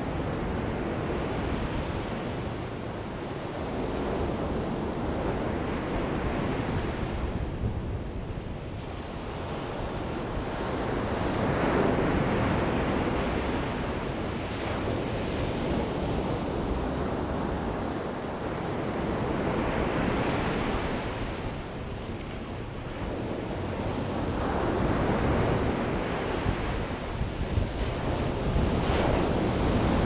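Sea surf breaking and washing up a sandy beach, swelling louder and easing again every several seconds as each set of waves comes in, with wind rumbling on the microphone.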